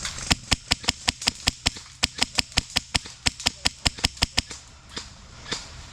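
Airsoft rifle firing a rapid string of single shots, about five a second and about twenty in all, then a pause and a few more scattered shots near the end.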